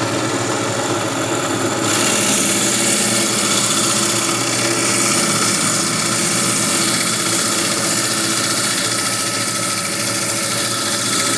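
Coral-fragging band saw running steadily, its blade cutting through the stony skeleton of a Duncan coral (Duncanopsammia). The cutting hiss gets louder about two seconds in and holds over the motor's hum.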